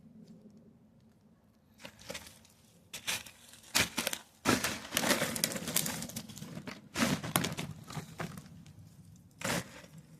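Hands digging through soil in a garden bed, a string of crumbly scraping and crunching bursts that start about two seconds in, run most densely through the middle, and end with one short scrape near the end.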